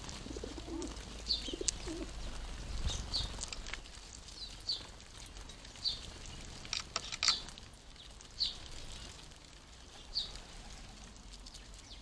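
House sparrows chirping at a garden feeder: short single chirps at irregular intervals, about one a second. There is a low cooing in the first second and a few sharp clicks around seven seconds in.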